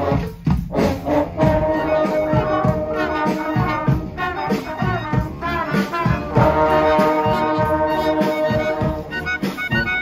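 Brass street band playing on the march, with trombones, trumpets and French horn. The band holds long chords over a steady pulsing beat, with a short gap just after the start.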